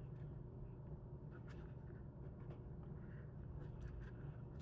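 Faint scraping and a few light clicks of plastic CPAP machine parts being handled during disassembly, over a steady low hum.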